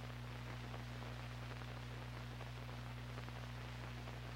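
Steady low hum with a faint hiss underneath: the background noise of an old film soundtrack.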